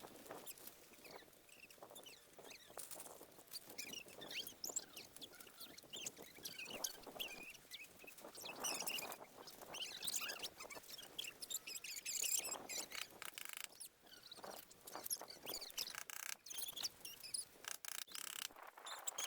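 Faint, busy chirping of small birds, many short high calls overlapping, mixed with scattered light clicks and taps.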